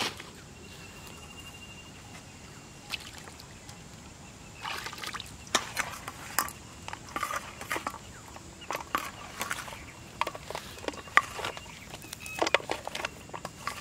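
Irregular short clicks, knocks and scrapes of hands working fishing bait in a steel plate, growing busier about four and a half seconds in.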